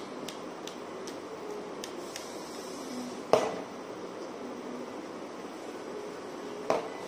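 Steady fan-like room noise, broken by two sharp knocks about three and a half seconds apart. The first knock is the louder.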